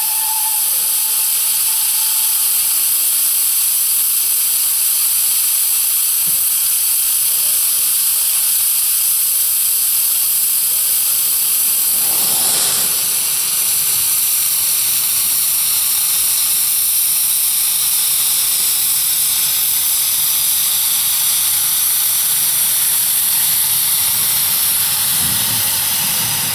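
Narrow-gauge steam locomotive hissing steam steadily. A louder gush comes about halfway through, as steam blasts from the cylinder drain cocks in a white cloud and the engine moves off. A steam whistle note ends right at the start.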